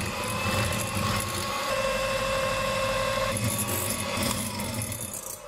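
Electric hand mixer running steadily with its wire beaters whisking eggs and sugar in a glass bowl, beating them until foamy for a sponge batter. Its whine drops in pitch as it is switched off near the end.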